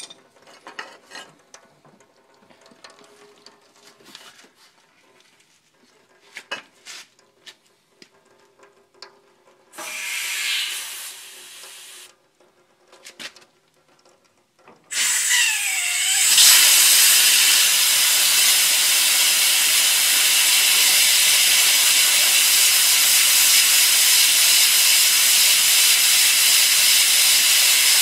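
Scattered small clicks and knocks at the air compressor tank's drain valve, a short hiss about ten seconds in, then from about fifteen seconds a loud steady hiss of compressed air and condensate water blowing out of the opened drain. The tank has not been drained in seven years and is full of water.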